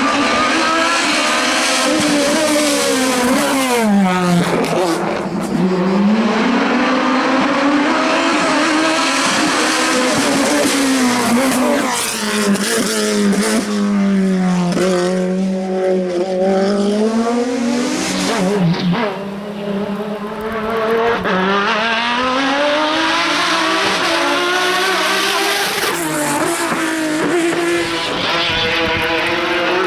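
Racing car engine run hard at high revs, its pitch climbing through the gears and dropping sharply several times as it brakes and changes down, then climbing again.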